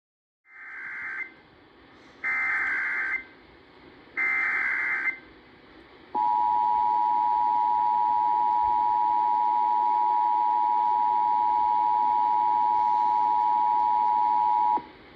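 Emergency Alert System tones announcing a child abduction (Amber) alert. First come three short bursts of SAME digital header data, each about a second long. Then the EAS attention signal, two steady tones sounded together, holds for about eight and a half seconds and cuts off sharply.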